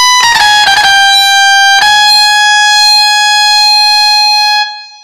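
The end of a song's instrumental: a few quick synth or keyboard notes, then one long held note that cuts off near the end.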